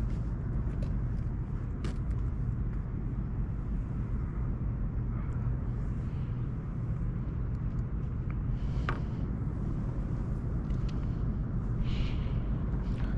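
Steady low rumble with a noise haze, with a few faint clicks along the way.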